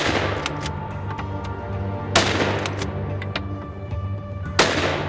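Hunting rifle shots fired at running wild boar: one right at the start, then two more about two and a half seconds apart, each ringing out through the forest. Background music plays underneath.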